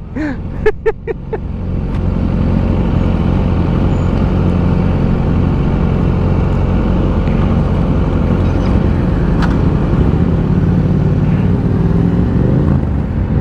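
Motorcycle engine running under way, with wind rushing over the rider's microphone. It grows louder about two seconds in as the bike picks up speed, then holds steady. A few short pitched blips come in the first second or so.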